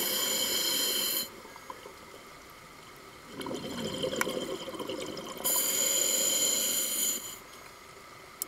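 A scuba diver breathing underwater through a regulator: hissing breaths with a faint whistle, one ending about a second in and another midway through, and a gurgling rush of exhaled bubbles between them.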